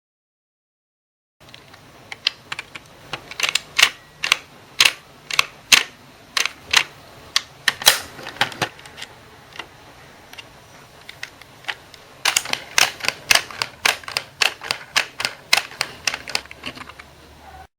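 Small plastic Anpanman toy microwave clicking and clacking as it is handled, its parts snapping and turning in quick irregular clicks. The clicks come in two busy runs with a sparser stretch between them.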